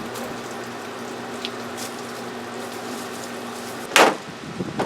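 Aerosol spray can hissing as a coat of paint or dye goes on, with two short, loud spurts near the end.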